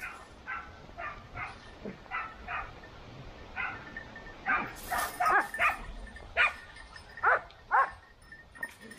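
Boar-hunting dogs barking in a string of about fourteen short, irregular barks that get louder in the second half, the last few falling in pitch.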